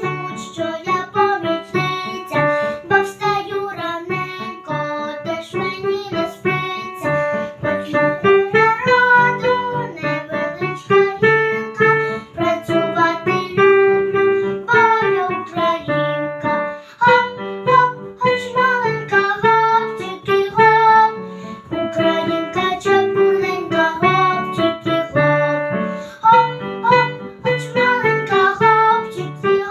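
Children's song with a piano-style keyboard accompaniment and a young girl singing the melody over it.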